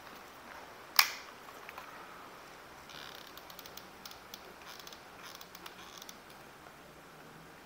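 One sharp knock about a second in, then faint rustling and light clicks: 3D-printed plastic case parts and a hot glue gun being handled.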